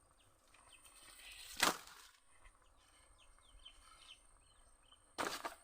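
Outdoor ambience with small birds chirping faintly and a steady high insect-like whine. Two short, loud rasping noises break in, one under two seconds in and one near the end.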